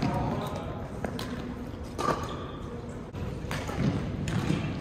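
Badminton rally: sharp racket-on-shuttlecock hits about two seconds apart, with thuds of footwork on the wooden court and voices from nearby courts echoing in a large gym hall.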